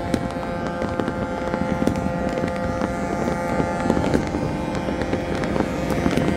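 Fireworks and firecrackers going off irregularly, many short sharp bangs and crackles, over a steady outdoor background noise.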